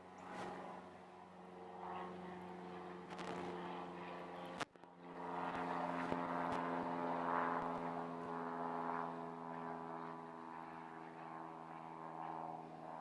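Steady engine drone with an even pitch. A sharp click comes about four and a half seconds in, after which the drone is louder.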